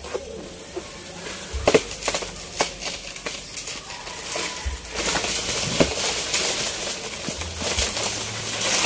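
Dry banana leaves rustling and a few sharp knocks as a bunch of saba bananas is handled on the plant, with the rustling thickest a little past the middle.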